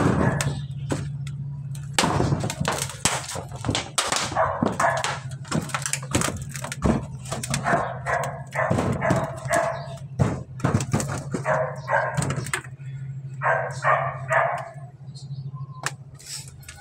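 A dog barking in repeated short runs, over sharp knocks and clatter on corrugated metal roofing and a steady low hum.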